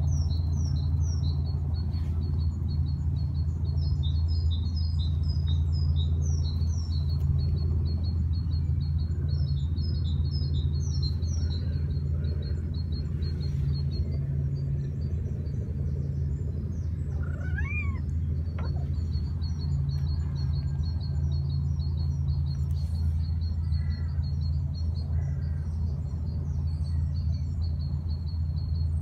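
Small birds chirping over a steady low rumble, with one short rising-and-falling call about two-thirds of the way in.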